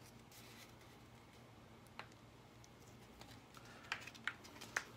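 Faint peeling of a vinyl pinstripe sticker's backing paper by hand: a few sharp little clicks and crackles, one about two seconds in and three close together near the end.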